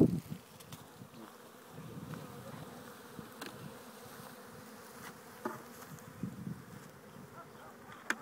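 Honeybees buzzing in a steady hum over an opened hive box full of frames, with a few light clicks.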